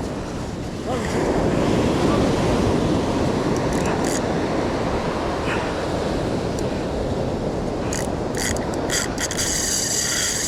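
Ocean surf breaking and washing along the shore, with wind buffeting the microphone. The wash swells louder about a second in and then stays steady.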